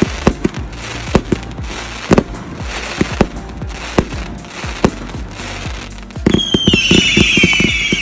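30 mm firework cake firing a volley of shots, each a sharp bang about every half second, with crackle from the bursting stars. About six seconds in the firing becomes louder and much faster, and several whistles glide slightly down in pitch over the shots.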